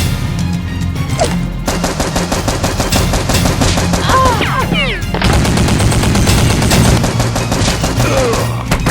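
Rapid automatic gunfire, shots fired in quick succession and thickening about two seconds in, over background music.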